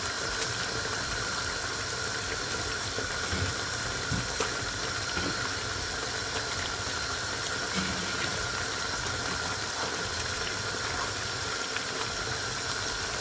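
Sweet and sour sauce bubbling at a boil in a frying pan, heard as a steady hiss over a hum, with a few faint soft knocks as pieces of fried fish are set down in it.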